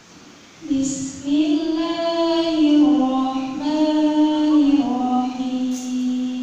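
A woman's solo voice singing into a handheld microphone in long, drawn-out notes with ornamented turns. It comes in about a second in, after a short pause.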